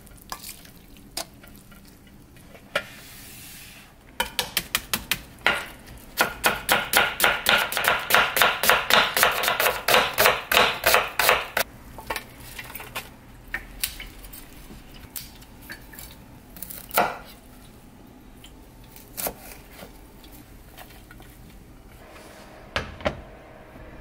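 Kitchen knife chopping fast on a cutting board, about three to four even strokes a second, for several seconds in the first half. Before and after come scattered single knocks and clinks of kitchen utensils.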